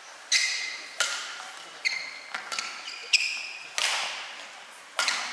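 Badminton rally: rackets striking a shuttlecock back and forth, about seven sharp, ringing pings in quick succession, irregularly spaced half a second to a second apart.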